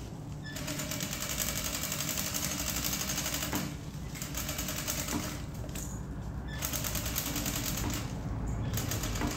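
Jack industrial lockstitch sewing machine stitching a seam in several runs of a few seconds, with short pauses between them.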